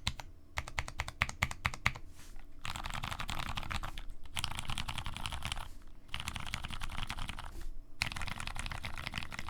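Tofu65 mechanical keyboard with lubed 62g Cherry Clear tactile switches, a brass plate and GMK keycaps being typed on: separate keystrokes for the first two seconds, then fast continuous typing in three runs broken by short pauses.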